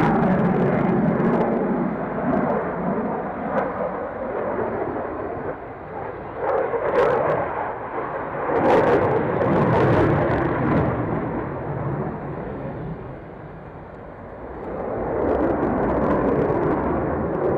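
Aircraft engine noise at an airfield, swelling and fading, dropping away about three-quarters through and building again near the end.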